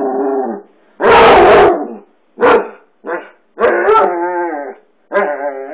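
Basset hound barking and baying: a very loud bark about a second in, two short barks, then two longer drawn-out bays with a wavering pitch.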